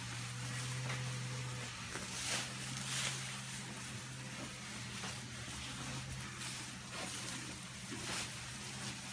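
Cows eating fresh-cut CO3 fodder grass from a concrete manger: short rustling, crunching tears of grass every second or so, over a steady low hum.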